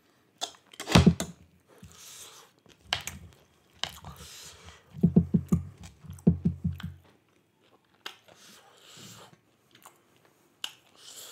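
Close-miked chewing and biting of spicy chicken curry, with wet mouth clicks and smacks. There is a loud knock about a second in, and a quick rhythmic run of chewing about five seconds in that lasts around two seconds.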